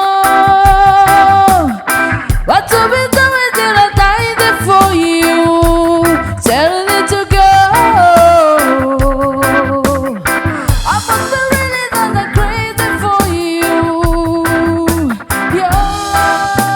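Reggae band playing live, a melody line holding long notes and sliding between them over a steady beat.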